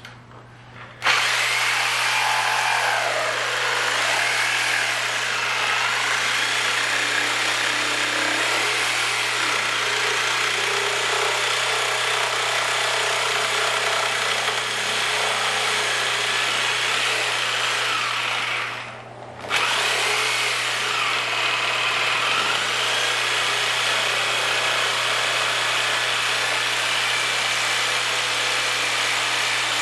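A power cutting tool running under load as it cuts through the plastic PAX run-flat support ring, its pitch wavering slightly. It stops briefly about 19 seconds in and then starts again.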